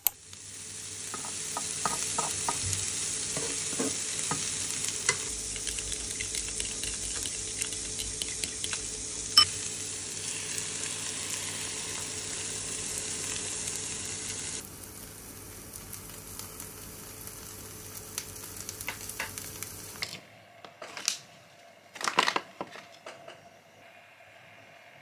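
Bacon, mushrooms, spinach and corn sizzling in a hot non-stick frying pan, stirred and scraped with a fork; the sizzle turns quieter a little past halfway. Near the end, a few clicks and taps on a keyboard.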